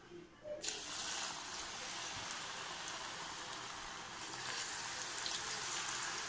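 Batter-coated cauliflower pieces (gobi 65) dropped into hot oil, deep-frying with a steady sizzle that starts suddenly about half a second in.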